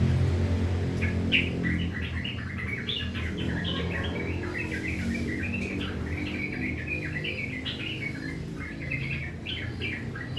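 Yellow-vented bulbul (trucukan) singing a rough, chattering run of quick short notes, starting about a second in, over a low steady hum.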